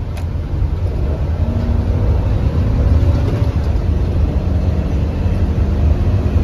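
Steady low rumble of a vehicle being driven, with engine and road noise heard from inside the cab.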